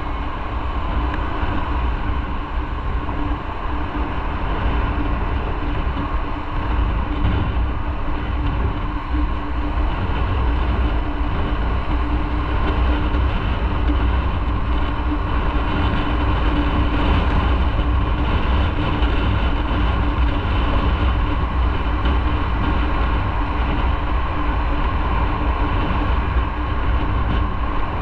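Motorcycle being ridden at a steady pace: a continuous drone of engine and road noise that holds steady throughout.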